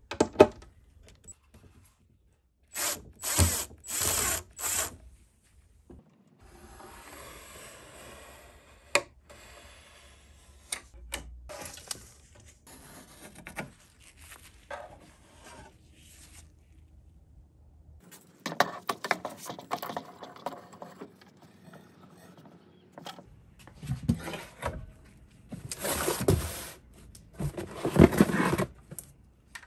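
Workshop handling sounds: a string of scrapes, rustles and clicks as tools and materials are handled. There are louder bursts of scraping about three seconds in and again near the end.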